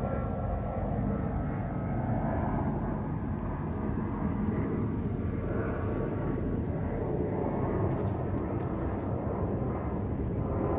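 Jet noise from a Boeing 777-200ER's two Rolls-Royce Trent engines as it passes overhead at altitude: a steady, even rumble with faint tones drifting in pitch.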